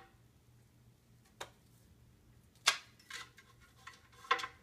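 A few sharp light taps and knocks, spaced irregularly, the loudest about two and a half seconds in: a feather wand toy and its rod knocking against the wooden shelves and pole of a cat tower.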